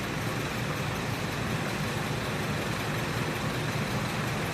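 A steady engine hum, like a car engine idling, with no changes in level.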